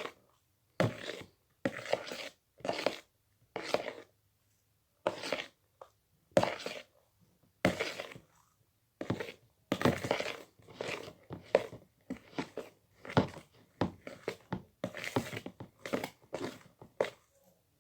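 Sticky fluffy slime made with shaving foam being mixed: a run of short, irregular squishing strokes with brief gaps between them.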